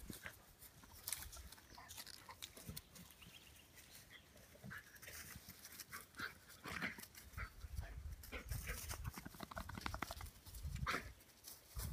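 A whippet and a flat-coated retriever play-fighting: scattered short yips and a rapidly pulsing growl about three quarters of the way through, over rustling and scuffling in grass and dead leaves.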